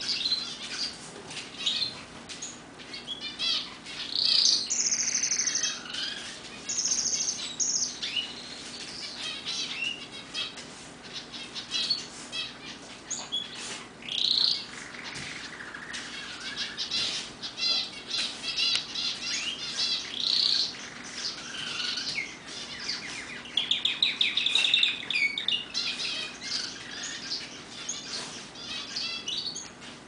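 Roller canary singing: rapid rolling trills and runs of quick repeated notes, among many short chirps, with a long fast trill a little past the middle.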